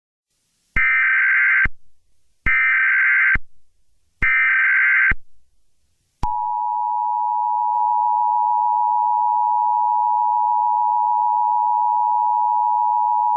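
Emergency Alert System tones: three roughly one-second bursts of SAME header data, a harsh digital screech, each followed by a short gap, then about six seconds in the two-tone EAS attention signal (853 and 960 Hz together) starts and holds steady. They mark the start of an emergency alert broadcast.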